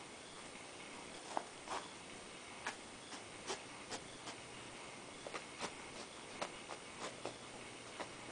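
A Scottish Fold cat's paws and claws on a fabric messenger bag: light, irregular ticks and clicks, about fifteen over several seconds, as it steps and picks at the bag, over a faint steady hiss.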